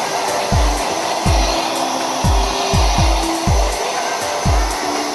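Handheld hair dryer blowing steadily on the wet fur of a plush toy, over background music with a regular bass drum beat.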